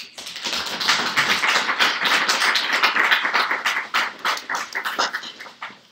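Audience applauding, building within the first second and dying away near the end.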